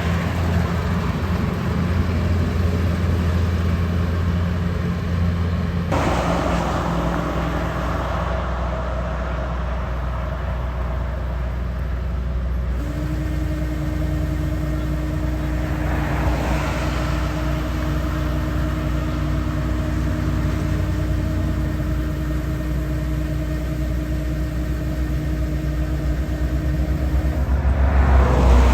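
A farm machine's engine running steadily. Its tone shifts about six seconds in and again about thirteen seconds in.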